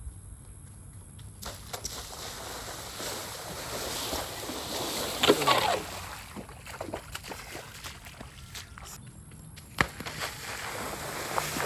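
Shallow water splashing and sloshing as a skimboard runs through a flooded field, with a few sharp thumps; the loudest splash comes about halfway through.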